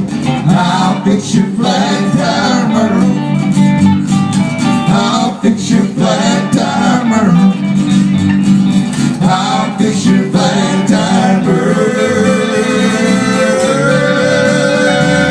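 Country song played on acoustic guitar with singing voices, ending on long held notes.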